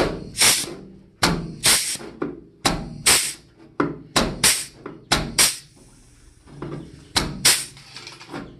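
A pneumatic flanging (joggle) tool presses a recessed step into the cut edge of a 1973 K5 Blazer's steel quarter panel. It makes repeated sharp air-driven clunks, mostly in pairs, about one pair every second and a half, with a longer gap about two thirds of the way through.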